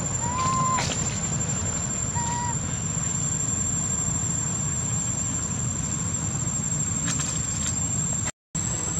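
A baby monkey gives two short squeaky coo calls, once near the start and again about two seconds in, over a steady low rumble and a constant high whine.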